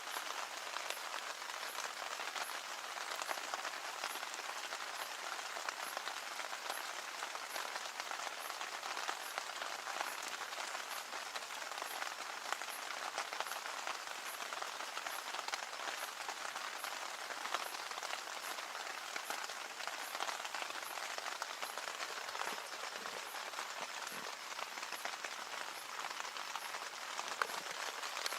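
Steady rain falling, a continuous hiss dotted with many small drop impacts.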